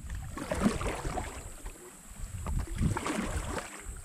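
Canoe paddle strokes splashing in the water, with wind rumbling on the microphone.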